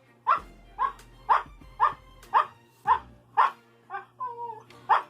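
Siberian husky barking a count on command, one short bark about every half second, about nine in all, with one drawn-out wavering whine-bark about four seconds in. Each bark stands for one letter of the answer.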